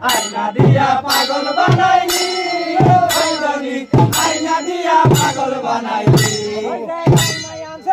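A man singing a boithamaro, an Assamese boat-race song, into a microphone in one long wavering line. Hand cymbals clash on the beat about twice a second.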